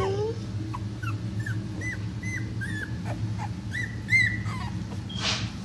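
Two-week-old boxer puppies whimpering in a string of short, high-pitched squeaks and cries, each bending down in pitch, over a steady low hum.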